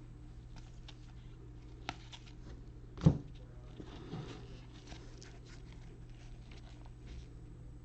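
Trading cards being handled on a table: faint rustles and small clicks, with one sharp knock about three seconds in, over a steady low hum.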